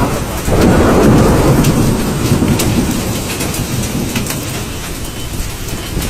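Hailstones and heavy rain pelting down, with many sharp clicks of hail striking hard surfaces. A louder low rumble swells about half a second in and slowly eases.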